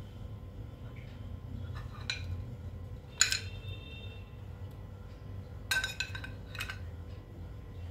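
A metal spoon clinking against a glass of juice: a sharp clink with a short ring about three seconds in, then a quick cluster of clinks near six seconds.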